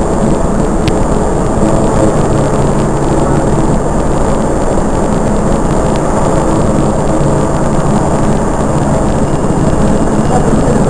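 Helicopter engine and rotor noise: a steady, loud drone.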